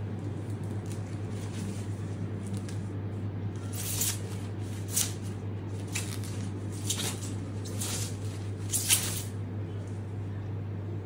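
Thin plastic bag rustling and crinkling in several short bursts as a motorcycle helmet is pulled out of it, the loudest near the end, over a steady low hum.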